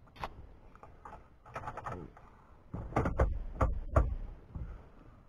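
Clicks and knocks from a Torx screwdriver and plastic dash trim being handled, loudest in a run of knocks about three to four seconds in.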